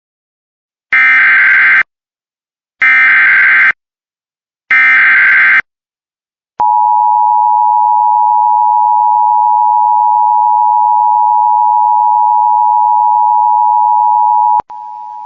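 Emergency Alert System header: three short bursts of SAME digital data tones, each just under a second, then the steady two-tone EAS attention signal held for about eight seconds, dropping to a quieter tone near the end. It marks the start of a broadcast emergency alert.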